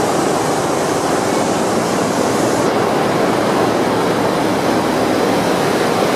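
Loud, steady din of running machinery in a container ship's engine room, blending into one even noise without a clear beat or tone.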